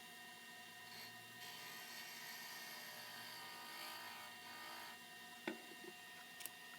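Faint whirring hiss of hardwood being cut or sanded on a wood lathe for about three and a half seconds, followed by a sharp click.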